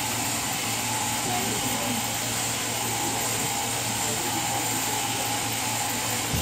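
Overhead-drive sheep-shearing handpiece running steadily as it cuts through a sheep's fleece, a continuous even hum of the machine.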